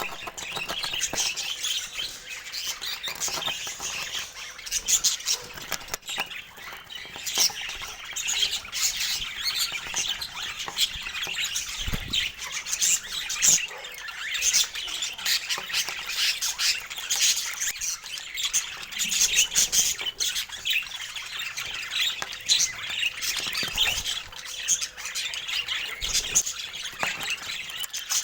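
Budgerigars chattering and squawking, many short calls overlapping without pause.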